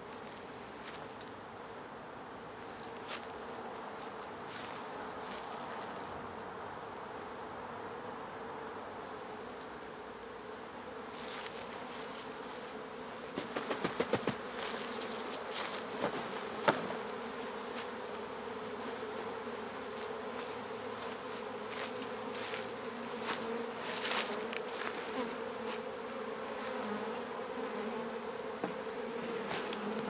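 A swarm of honey bees humming steadily, a low even drone, as the shaken-down swarm crowds around and into a hive box. A cluster of short clicks and knocks comes about halfway through.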